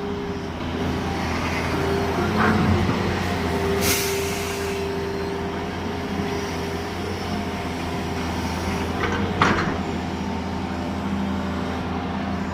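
Heavy diesel engine running steadily, with two brief hisses about four and nine and a half seconds in.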